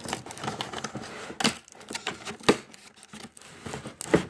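Irregular clicks, taps and crinkling of something being handled close to the microphone, with a few sharper knocks about one and a half and two and a half seconds in.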